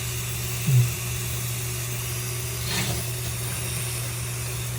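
A steady low machine hum with an even hiss over it. A brief low sound comes under a second in, and a short noise near three seconds.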